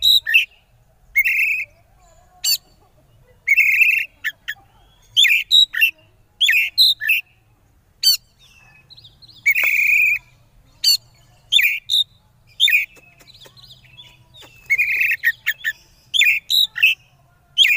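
Oriental magpie-robin singing: loud, short phrases of whistled and harsh notes, a burst every second or so with brief pauses between. It is the excited 'konslet' song that bird keepers play to provoke rival magpie-robins.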